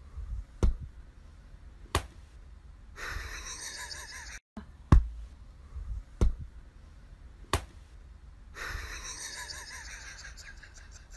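Several sharp thumps on a hard floor, a second or more apart, between two stretches of soft breathy hiss with a faint wavering whine in it.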